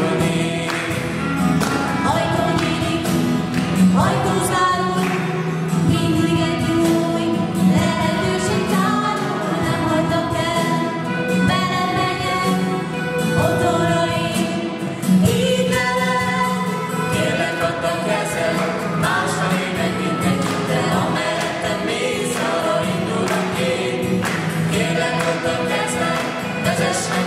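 Small band playing a Christian song live: several voices singing together in harmony over acoustic guitar and bass guitar.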